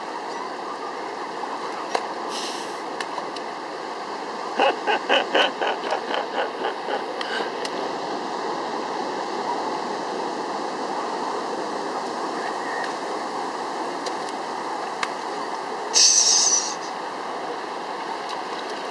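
Steady wash of low surf and water across a shallow beach. About five seconds in, a young child's voice makes a quick run of short repeated sounds, about four a second, fading over some three seconds. Near the end there is a brief, loud, high hiss.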